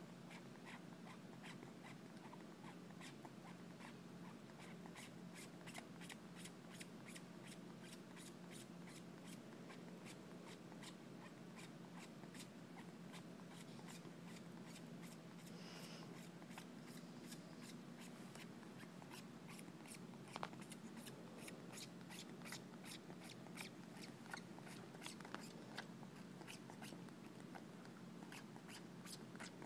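Faint, quick clicking of a kitten suckling on a human finger for comfort, several clicks a second, over a faint steady hum.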